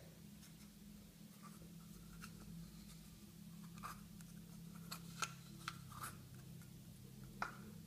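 Quiet handling noises: fingers rubbing and pressing on a plastic Play-Doh tub and dough, with several light clicks in the second half, over a steady low hum.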